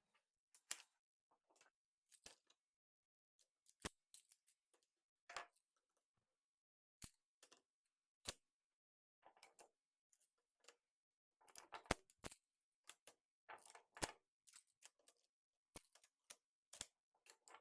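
Magnetic building tiles clicking as they snap together one at a time: scattered sharp clicks at irregular intervals, a few in quick clusters, with silence between.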